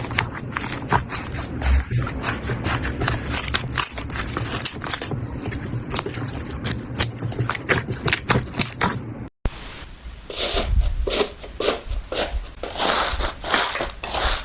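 Slime being squeezed, poked and stretched by hand, giving a dense run of small clicks, pops and crackles. A sudden cut about two-thirds through is followed by another run of crackling squishes that come in quicker clusters.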